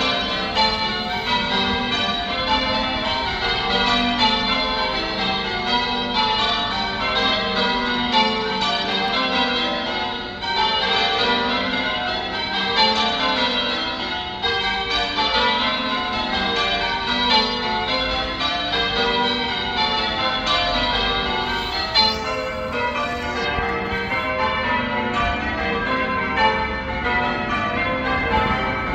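A ring of church bells being rung in changes (full-circle change ringing): a continuous, steady stream of bell strokes, one bell after another.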